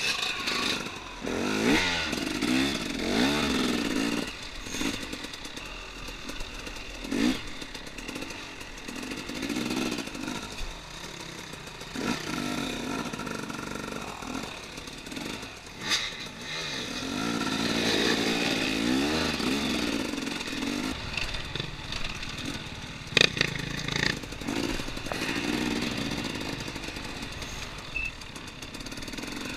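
2014 KTM 250 XC-W two-stroke dirt bike engine revving up and down repeatedly under throttle, heard from the rider's helmet. A few sharp knocks come through, around the middle and again later.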